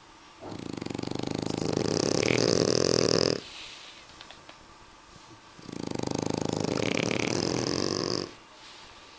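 French bulldog snoring: two long snores of about three seconds each, with a fine buzzing flutter, a couple of seconds apart.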